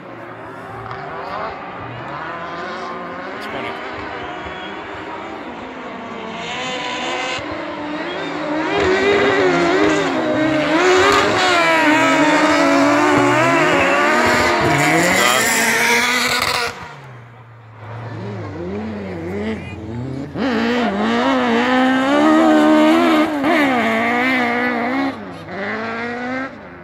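Engines of racing buggies on spiked tyres on an ice track, several at once, revving up and down through the gears as they pass. They are loudest in two long stretches, with a short lull in the middle where a steady low engine hum is left.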